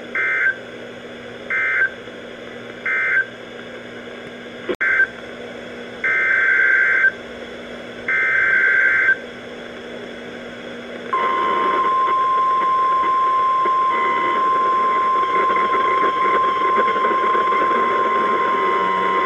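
NOAA Weather Radio Emergency Alert System data tones: three short warbling bursts of end-of-message code close the previous warning. After a click, three more bursts carry the next warning's header, the last two about a second long each. About eleven seconds in comes the steady single-pitch 1050 Hz warning alarm tone, held for about nine seconds to signal that a warning follows.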